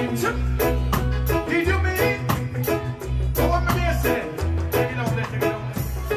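Reggae music: a backing track with a heavy, repeating bass line and a regular drum beat, with a man singing live into a microphone over it.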